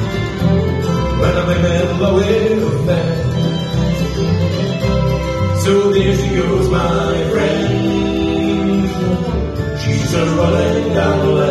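Acoustic bluegrass band playing live: fiddle, acoustic guitar, mandolin and upright bass together at a steady tempo, heard through the hall's PA.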